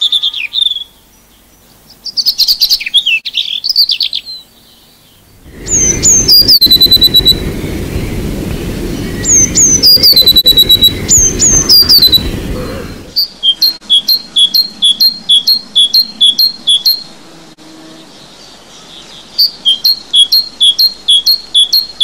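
A sequence of three songbird songs. First a European robin's varied, warbling song. Then a blue tit singing a few high notes that slide down into a fast trill, repeated several times over a low background rumble. Then a great tit repeating a two-note phrase steadily, in two runs with a short pause between them.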